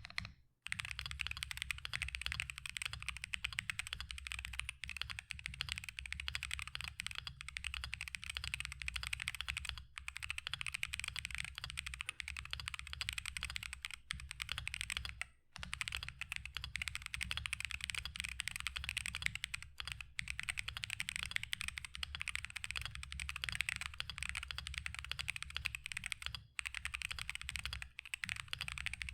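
Mechanical keyboard fitted with Pulling Keys Princess switches being typed on in a fast, continuous stream of keystrokes. The typing breaks off briefly about half a second in and again around fifteen seconds in.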